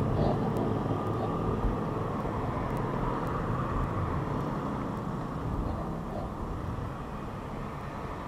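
Cars passing close by on the road, a steady low rumble of engines and tyres that slowly fades.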